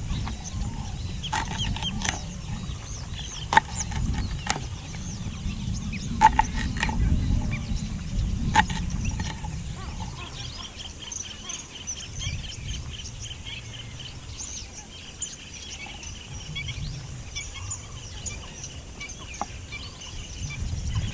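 Kitchen knife chopping moringa drumstick pods on a wooden cutting board: a handful of sharp knocks in the first nine seconds, then quieter slitting of the pods. Birds chirp throughout over a low outdoor rumble.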